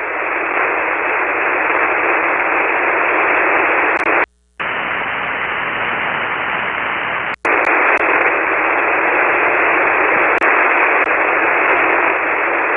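Steady hiss of band noise from a shortwave transceiver on 40-metre single sideband, with no signal heard: the other station has faded out into the noise. The hiss cuts out for a moment about four seconds in, and again with a click about seven seconds in.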